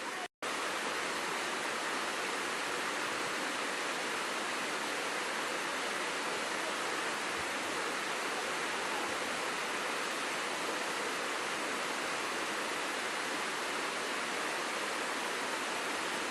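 Waterfall: a steady rush of falling water, cut off for a split second about a third of a second in, then continuing unchanged.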